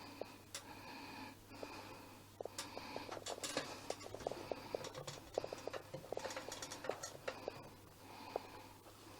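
Irregular run of small light clicks and ticks from a lit methylated-spirit pocket stove with a metal mug of water sitting on it, densest in the middle. Soft breathing close to the microphone runs underneath.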